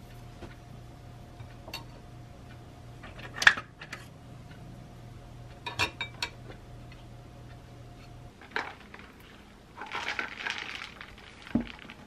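A table knife and fork set down against a china plate: a few sharp clinks, the loudest about three and a half seconds in. Near the end comes a brief scraping rustle and then a dull thump.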